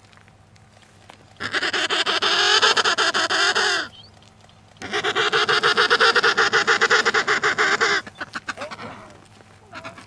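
Emperor penguin calls: two long, rapidly pulsing calls with a wavering pitch, each lasting two to three seconds and about a second apart, the second trailing off near the end.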